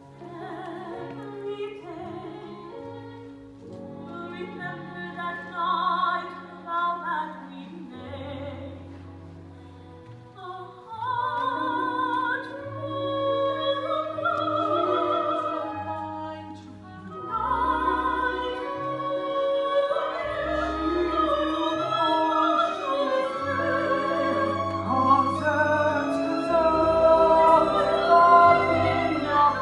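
Operatic singing with vibrato over an orchestral accompaniment, growing louder about a third of the way in.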